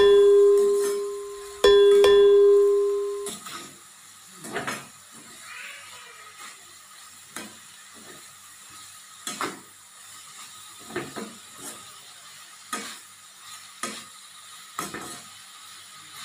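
Two loud ringing dings of the same pitch in the first three seconds, each fading away over about a second and a half. Then a metal spoon knocks and scrapes now and then in a steel karahi as frying ridge gourd peel temper is stirred, over a faint hiss from the pan.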